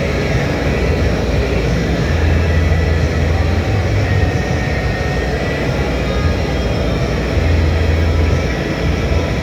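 Industrial annealing furnace running in reverse with a load: a loud, steady mechanical roar over a low hum that swells now and then.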